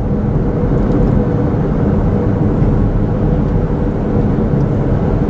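Steady road and engine noise of a moving car heard from inside the cabin: a low, even rumble with a faint steady hum.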